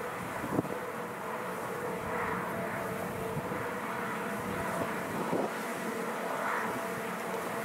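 Polish EU07 electric locomotive approaching at the head of a freight train, with a steady electric hum from its motors and blowers and a brief knock or two.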